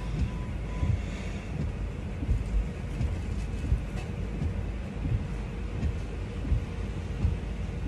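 Low, uneven rumble in a car's cabin, with small irregular bumps, while the car waits at a drive-through window. A faint short beep sounds about a second in.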